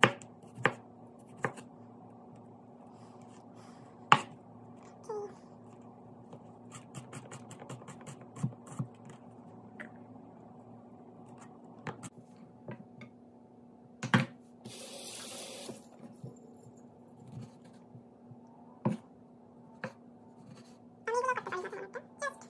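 Kitchen knife chopping vegetables on a wooden cutting board: irregular sharp knocks a second or several apart, with lighter taps between, over a faint steady hum. A brief hiss comes about halfway through.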